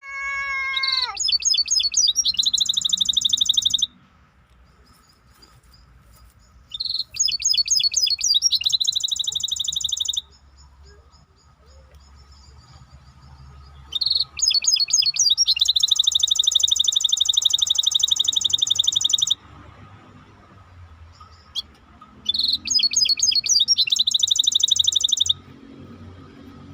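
A songbird singing four long phrases, each a run of rapid trills that turns into a fast, even, buzzing roll, with pauses of a few seconds between phrases. A faint steady high tone and a low hum continue underneath.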